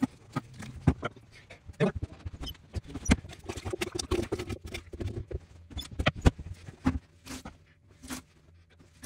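Water being bailed out of a toilet bowl with a sponge and a plunger: irregular splashes, drips and knocks as the sponge is wrung into a plastic bucket and the plunger works in the bowl.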